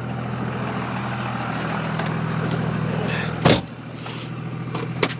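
A 2000 Dodge Ram 2500's Cummins 24-valve turbo diesel running steadily. A single thump comes about three and a half seconds in, and the engine sounds quieter after it.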